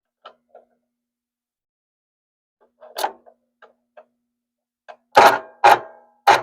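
A few faint clicks, a small cluster of short knocks about three seconds in, then from about five seconds a run of loud, short, sharp knocks.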